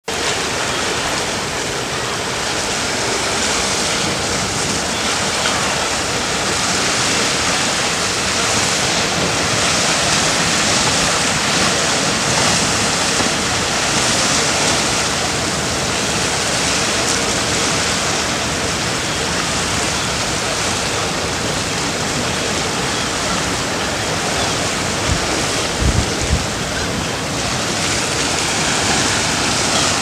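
Sea waves breaking, a steady rushing that swells and eases every few seconds, mixed with wind. A few low gusts buffet the microphone near the end.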